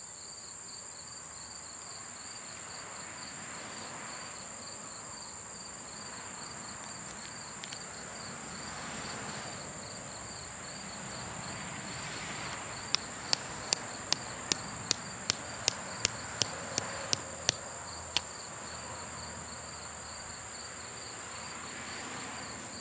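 A hammer taps a small stake into the ground about a dozen times in quick succession, roughly two or three sharp knocks a second, with a last single knock after a short pause. Under it, insects chirr steadily in a high, unbroken drone.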